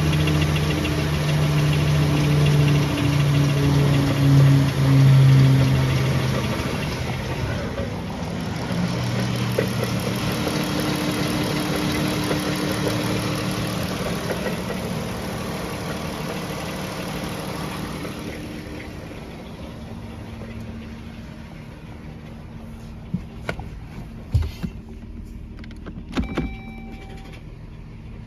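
Dodge Journey's Pentastar V6 engine running with a knocking noise, which several second opinions say is more than likely a worn piston wrist pin. The engine note changes about seven seconds in and fades away after about eighteen seconds. A few sharp clicks and a short beep follow near the end.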